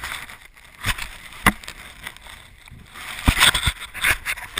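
Handling noise from a small camera being moved by hand: rubbing and rustling on the microphone, broken by sharp knocks about a second and a half in and again near the end.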